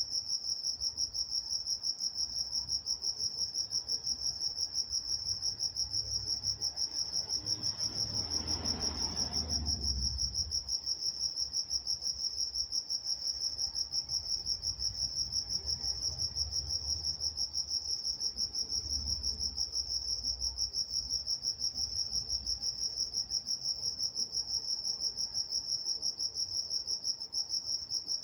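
Crickets chirping at night in a steady chorus of fast, even pulses. A faint low rumble swells and fades about eight to ten seconds in.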